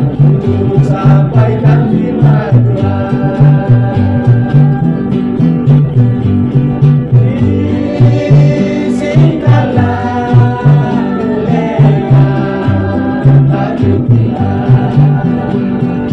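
A gospel vocal group singing together over acoustic guitar, with a steady low bass beat underneath.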